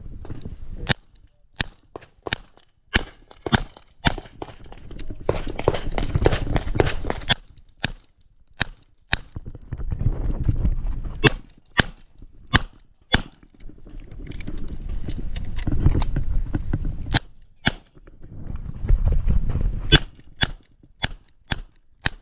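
Smith & Wesson 929 revolver firing .38 Short Colt cartridges in quick strings of shots about half a second apart. Between the strings are stretches of low noise.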